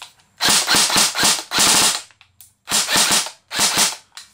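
Tokyo Marui M4 airsoft electric gun (AEG) firing on full auto, its stock gearbox cycling in four short bursts of rapid shots.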